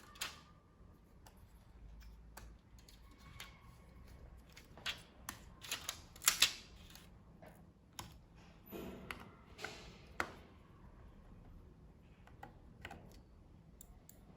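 Scattered sharp clicks and light taps of small hard parts being handled, irregular, with a cluster of louder clicks in the middle.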